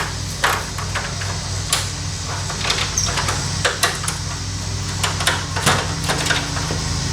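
Irregular knocks and clatters of objects being handled, about nine sharp hits spread unevenly, over a steady low hum.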